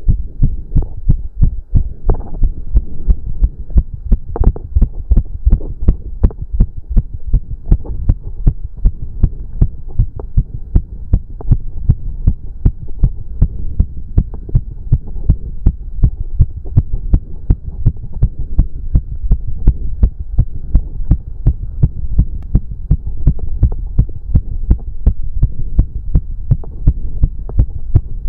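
A man's heart beating fast in an even, rapid rhythm of deep thumps with a low hum between beats: a racing heartbeat raised by cardio exercise.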